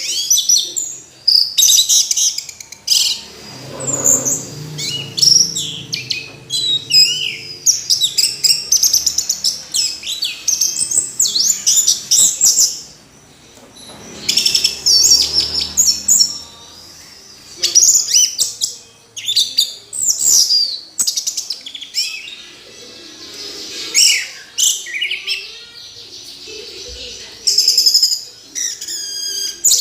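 Orange-headed thrush singing a varied, high-pitched song of rapid whistled and chattering phrases, delivered in bursts with short pauses between them.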